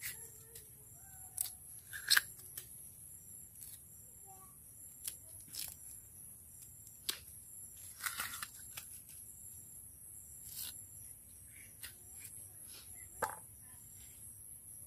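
Fresh bamboo shoot being peeled by hand and trimmed with a knife: scattered crisp tearing and snapping as the tough outer sheaths come away, with quiet gaps between, the sharpest crack about two seconds in.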